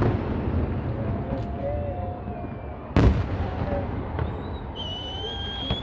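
Fireworks display: a low rumble of echoing bursts, with one sharp loud bang about three seconds in. Faint crowd voices are mixed in, and near the end a steady high-pitched whistle starts.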